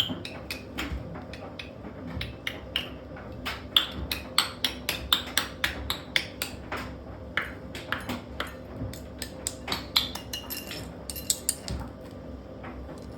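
Washing machine running with a brick loose in its drum: rapid, irregular bangs and clatters of the brick striking the drum over the steady hum of the machine.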